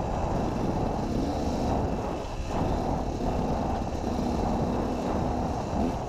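KTM 250 EXC enduro motorcycle's engine running at a steady pace while riding along a grass track.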